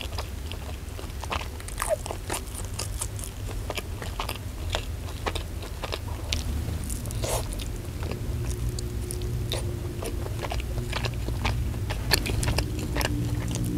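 Close-up chewing and biting of fried chicken: many short, sharp wet mouth clicks and crunches, with the chicken pulled apart by hand, over a steady low hum.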